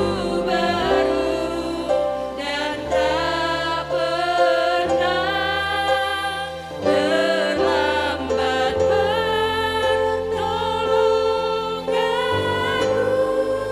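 A Christian worship song: sung vocals with a sustained keyboard-and-bass accompaniment, changing chords every second or two.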